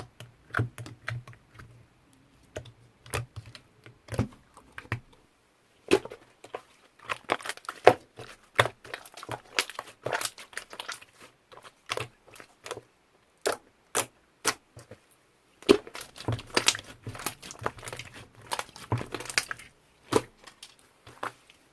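Slime being squeezed, poked and stretched by hand, giving irregular clusters of sharp clicking and crackling pops.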